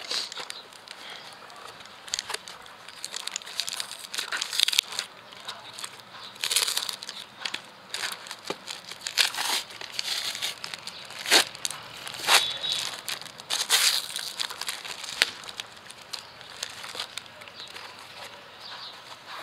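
Cardboard mailer and plastic packaging torn open and handled: irregular crinkling and rustling with tearing rips and a few sharp snaps, the loudest about halfway through.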